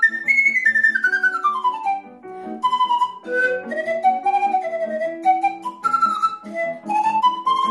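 Pan flute (Romanian nai) playing a fast hora melody, opening with quick descending runs and breaking briefly about two seconds in before the tune picks up again. A lower accompaniment of sustained notes plays underneath.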